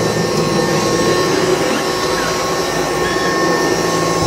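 1979 Kirby Tradition upright vacuum running steadily with its converted metal fan, a continuous rush of air with a steady whine over it. The motor is pulling strong suction.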